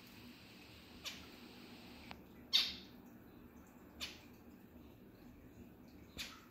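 Pet zebra finch giving four short calls, each falling in pitch, spaced about a second and a half apart; the second of them is the loudest. A faint steady hiss underneath cuts off about two seconds in.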